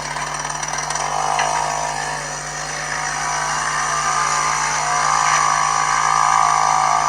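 Two-stroke Ural chainsaw engine, about 5 hp, fitted to a homemade mini moped, running and revving up and down. The revs rise about a second in, dip, then climb again and hold high before falling off near the end.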